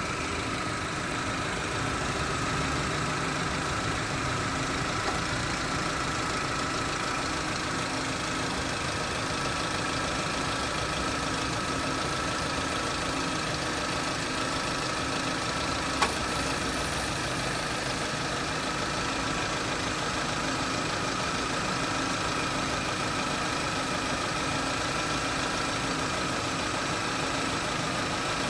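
Car engine idling, heard up close in the open engine bay, with a steady high-pitched whine over the running: the strange noise the owner hears from the engine. One sharp click about halfway through.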